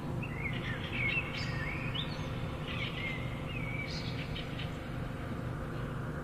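Songbird chirping in short warbled phrases of rising and falling whistles, fading out after about four seconds, over a steady low hum.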